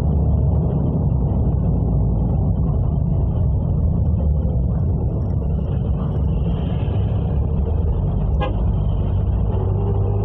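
Car driving along a road: a steady, low engine and tyre rumble, with a single brief click about eight seconds in.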